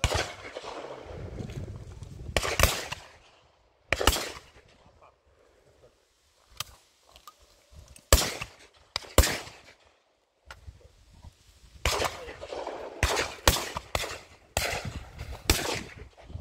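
Shotgun shots fired at driven partridges flying overhead: about a dozen sharp reports, some loud and close, others fainter from further down the line. They come singly and in quick pairs, with a rapid run of shots near the end.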